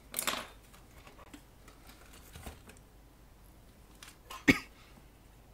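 An opened oscilloscope chassis being handled and turned over on a workbench: a short rustle at the start, a few light clicks, and one sharp knock about four and a half seconds in.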